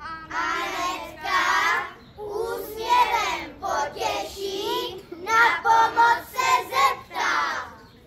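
A group of young children singing together without accompaniment, a short run of sung phrases with brief pauses between them, ending just before the close.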